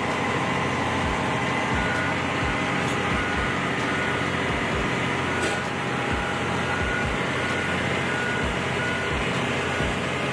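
Heavy construction machinery running steadily, with a reversing alarm beeping repeatedly over the engine noise.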